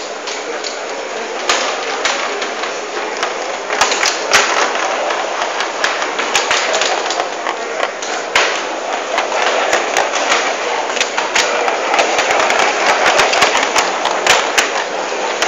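Model tram running on the layout's track, with rapid, irregular sharp clicks and clatter from the wheels on the rails, thickest in the second half, over a steady background of hall noise.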